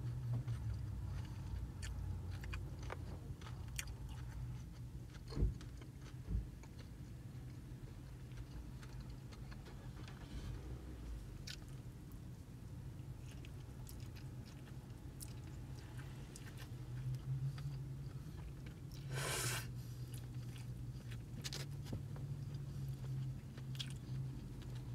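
Close-up chewing and biting of chow mein noodles and other Chinese takeout food, wet mouth sounds with small clicks of fork and foam plate. A steady low hum runs underneath, and two sharp knocks come about five and six seconds in.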